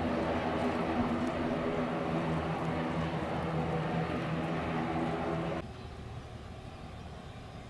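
Steady droning hum with several held tones from a parked Boeing 737 jet on the apron; it cuts off abruptly about five and a half seconds in, leaving a quieter low rumble.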